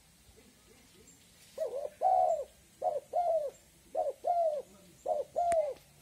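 Spotted dove cooing: four two-part coos begin about a second and a half in, each a short note followed by a longer arched note that falls away. A single sharp click comes during the last coo.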